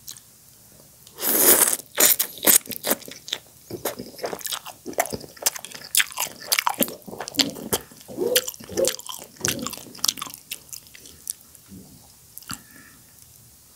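Close-miked eating of noodles from soup: a loud slurp about a second in, then wet chewing and mouth smacking, a dense run of clicks that thins out near the end.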